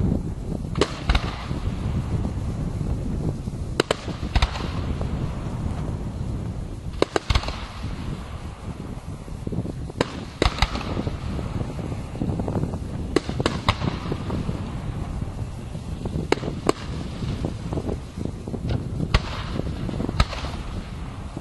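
Fireworks display: shells bursting in sharp bangs every few seconds, often two in quick succession, over a steady low rumble.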